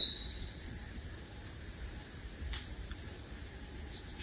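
Crickets and other insects chirring steadily on one high pitch, with a few short, fainter whistled notes a little lower.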